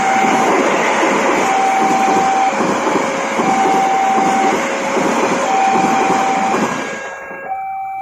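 Passenger train running past, its wheels on the rails making a steady rush of noise that drops away about seven seconds in as the last car clears. Over it, the level-crossing warning alarm sounds two alternating tones, a higher and a lower, each about a second long. Near the end, other steady tones begin.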